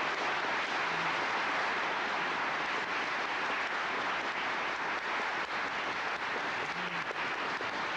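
Audience applauding steadily, a dense, even clapping from many people.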